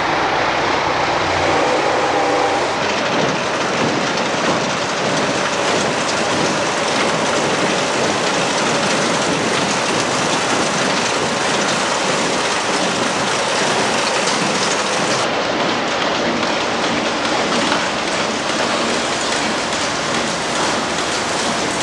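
Loud, steady, dense rattling noise of running machinery, unbroken throughout, with a slight change in tone about fifteen seconds in.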